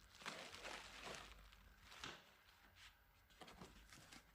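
Near silence with a few faint, brief rustles of packaging being handled.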